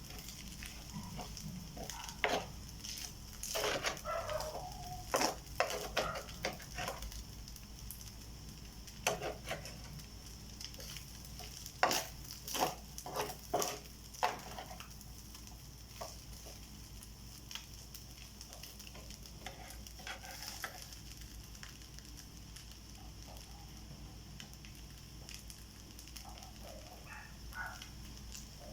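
Fried rice cooking in a pan: a faint steady sizzle with irregular clicks and scrapes of a utensil stirring against the pan, clustered in the first half. Chickens cluck a few times in the background.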